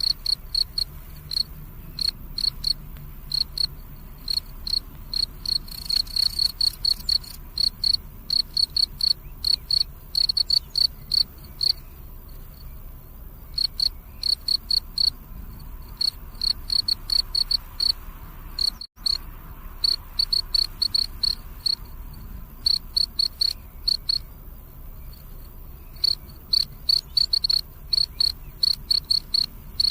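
Crickets chirping: clear, high chirps repeating in rapid trains, with short pauses between the runs. There is a momentary cut in the sound about two-thirds of the way through.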